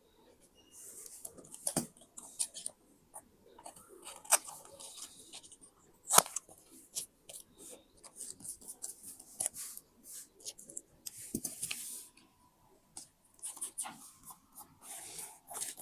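Paper being handled and cut with scissors: irregular rustling and crinkling with a few sharp snips and taps, the loudest about six seconds in.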